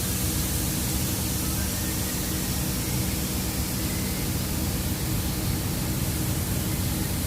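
Steady hiss of noise spread evenly across the range, with a faint low hum underneath, even throughout; no tool clicks or knocks stand out.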